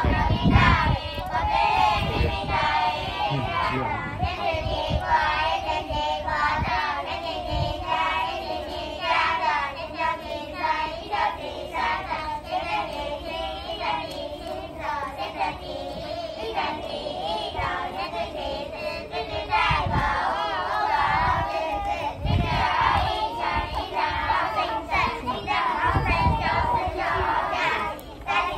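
A group of young children singing together in unison, their voices wavering around one steady pitch range, with a few low thumps on the microphone.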